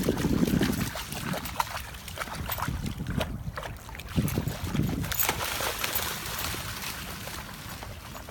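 Water splashing and lapping at the shore, with wind buffeting the microphone in the first second.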